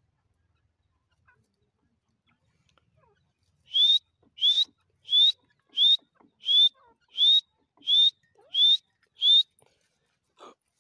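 Grey francolin calling: a series of nine short, rising whistled notes, evenly spaced at about one and a half a second, beginning a few seconds in.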